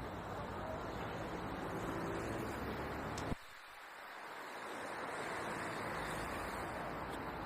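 Steady outdoor rushing noise with wind on the microphone. A little over three seconds in it clicks and drops out abruptly, the low rumble vanishing, then fades back up over about two seconds.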